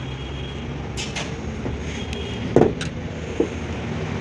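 A removed diesel injection pump being handled on a metal body panel: several short knocks and clinks, the loudest about two and a half seconds in, over a steady low hum.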